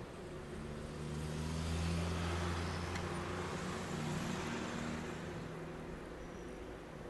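A motor vehicle going by: a low engine rumble and road noise swell up about two seconds in, then fade away.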